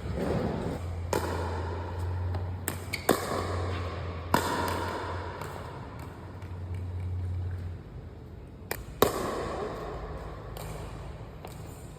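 Pickleball paddles hitting a plastic pickleball: a string of sharp, irregular pops, some in quick pairs. A steady low hum runs under them until a few seconds before the end.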